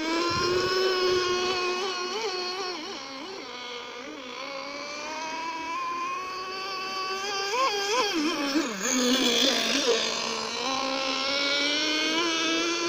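Handmade wooden RC boat's small GO 0.28 nitro engine running at high revs, a high steady whine. Its pitch wavers and dips for a few seconds about two-thirds of the way through, then climbs back.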